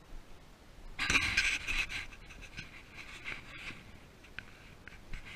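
Hunting dog panting rapidly close to the microphone, starting suddenly about a second in and loudest just after it starts.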